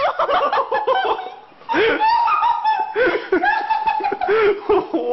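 A person laughing hard in quick bursts, mixed with a French bulldog's drawn-out, howl-like vocalizing: two held calls about two seconds apart.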